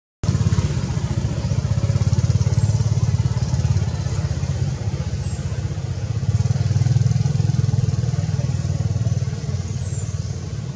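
An engine running with a low, steady rumble, louder in the middle and easing off near the end.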